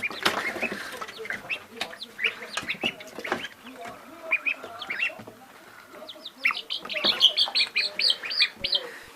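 Baby poultry chicks peeping: many short, high chirps that grow busier in the last few seconds.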